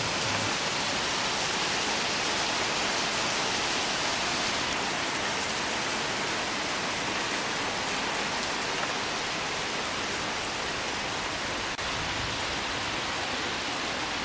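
Torrential rain from a cloudburst pouring steadily onto trees, foliage and grass, an even wash of noise.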